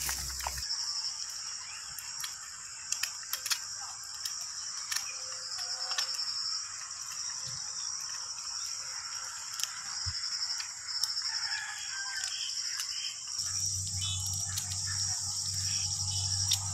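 Outdoor rural ambience: insects chirping steadily and a rooster crowing, with scattered sharp clicks and a low hum that starts near the end.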